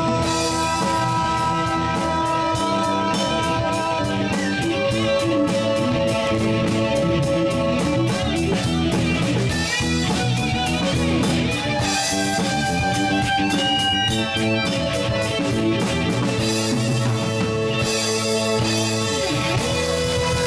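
Live rock band playing an instrumental passage: electric guitar holding long lead notes over bass and a steady drum-kit beat.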